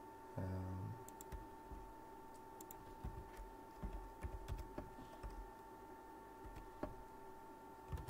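Typing on a computer keyboard, with mouse clicks: scattered sharp keystrokes, thickest in the middle. A short hum of a voice comes about half a second in, and a faint steady tone runs underneath.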